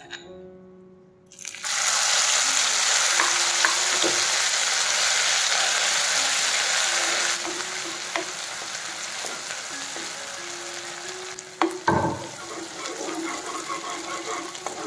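Crushed red chilli mixture dropped into hot oil in a nonstick frying pan, setting off a sudden loud sizzle about a second and a half in. The frying goes on as a metal spatula stirs and scrapes through it, easing off somewhat after about seven seconds.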